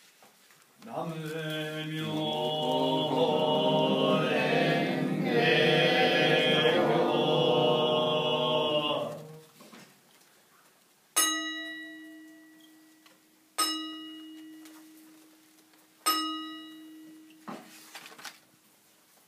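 A chanting voice holds two long, steady phrases, then a Buddhist bowl bell is struck three times, about two and a half seconds apart, each strike ringing and fading.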